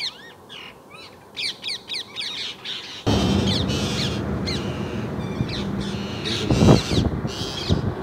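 Parakeets screeching in repeated harsh bursts, alarm-calling at a snake in their nesting tree. About three seconds in, a steady low rumble comes in underneath the calls, with a couple of louder knocks later on.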